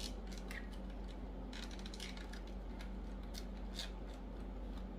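Scattered light clicks and scrapes of 3D jigsaw puzzle pieces being handled and pressed together, as a loose piece whose tab barely reaches is worked into place.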